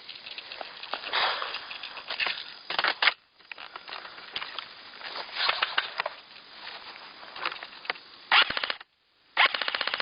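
Rustling and gear-handling noise, then two short full-auto bursts from an airsoft rifle, rapid even clicks of fire: one about eight seconds in and another starting near the end.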